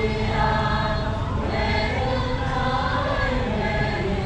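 Several voices singing together like a choir, in long held notes that slowly shift in pitch, over a steady low rumble.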